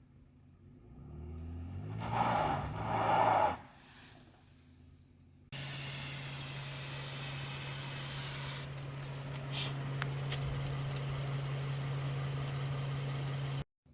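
Truck engine revving up, rising in pitch for about two seconds and then falling away. About halfway through it cuts suddenly to a steady engine hum under a loud, even hiss, which stops abruptly near the end.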